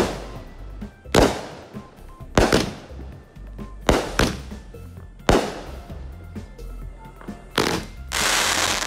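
Consumer aerial fireworks bursting overhead: six sharp bangs about a second and a half apart, each trailing off. Near the end a dense crackling hiss.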